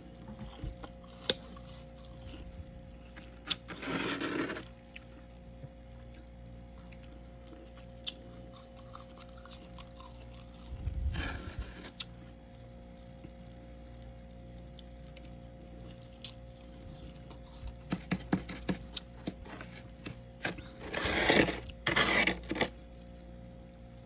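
Metal spoon scraping and scooping packed freezer frost, with the crisp crunch of the frost: short scratchy bursts about four seconds in and near the middle, then a longer run of clicks and scraping near the end, over a steady low hum.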